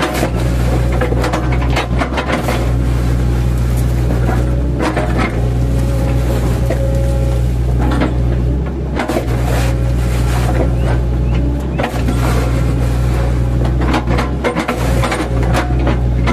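Mini excavator's diesel engine running steadily under load, with irregular knocks and crunches as the bucket chops felled oil palm trunks into pieces.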